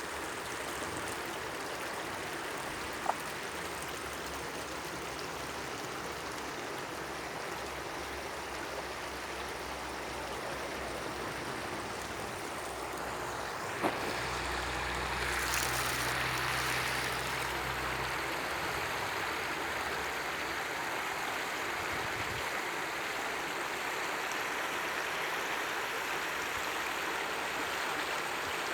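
Small stream babbling steadily over stones. There is a sharp click about three seconds in and another about fourteen seconds in, and a low rumble with a louder rush for a few seconds after the second click.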